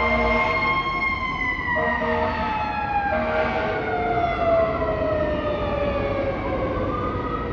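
Fire truck's mechanical Q siren winding down, its wail falling slowly in pitch over about six seconds, with air horn blasts in the first few seconds. Another siren wail rises near the end.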